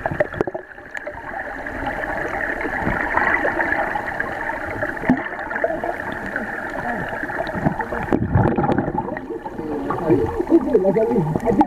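Water rushing and gurgling as heard through a camera held underwater beneath a waterfall: a steady muffled wash, with wavering gurgles near the end.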